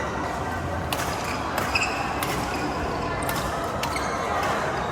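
Badminton rackets striking the shuttlecock in a rally: a string of sharp cracks, roughly one every half second to a second, with a few short squeaks, over steady sports-hall background noise.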